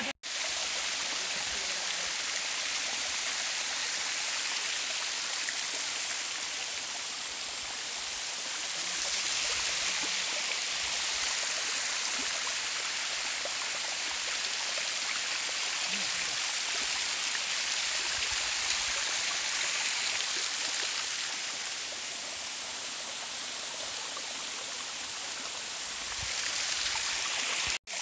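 Small waterfall cascading over stepped rock ledges: a steady rush of falling, splashing water that grows louder for a while in the middle and again near the end. The sound drops out for an instant just after the start and again just before the end.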